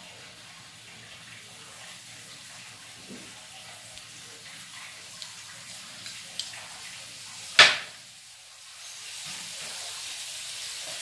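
Low steady hiss of butter melting in a frying pan over a portable gas stove's flame, growing a little louder near the end. A single sharp knock about seven and a half seconds in stands out above it.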